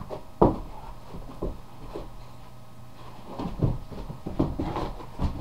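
A boxer puppy moving and playing on its own, making irregular knocks and thumps, the sharpest about half a second in and a cluster near the end. A steady low hum runs underneath.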